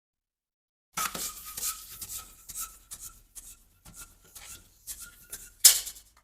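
Rubber balloon being rubbed and squeezed by hand, giving a string of short squeaks and rubbing sounds, with one sharp crack about five and a half seconds in.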